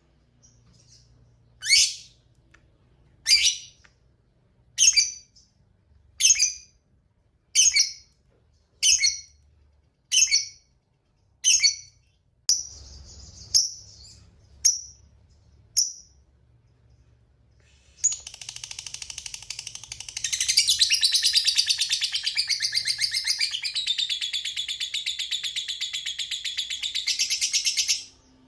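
A lovebird calls: about a dozen short, sharp, high chirps spaced evenly, then a long, fast chattering trill of about ten seconds. This is the 'ngekek panjang' (long chatter) prized in fighter lovebirds.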